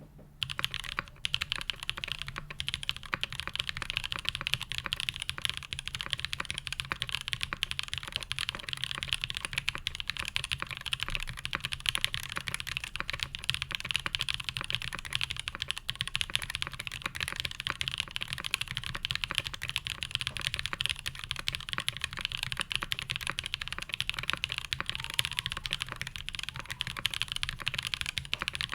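Fast, continuous typing on an Iron180 mechanical keyboard with a carbon fiber plate and no dampening: lubed Black Cherry Pies switches (H1 bottoms, Kailh black stems, Cherry tops) under GMK keycaps clacking in a dense stream of keystrokes that begins about a second in.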